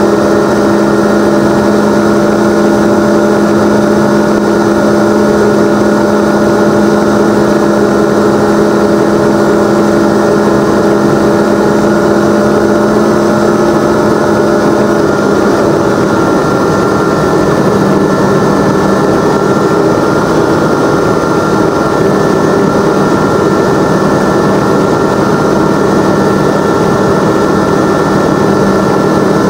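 Aeroprakt A22LS ultralight's propeller engine running steadily in cruise, heard inside the open cockpit. The engine note shifts slightly about halfway through.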